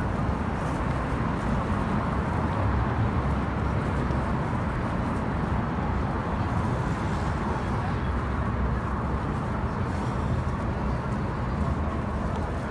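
Busy city street ambience: a steady mix of traffic and a murmur of crowd voices.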